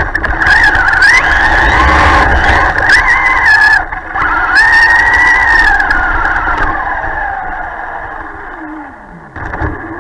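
Electric motor and drivetrain of a Traxxas Stampede 4x4 RC truck whining under throttle over a low rumble, the pitch rising and falling as it is driven through snow. The whine then winds down in pitch for a few seconds as the truck slows, and a short burst of throttle follows near the end.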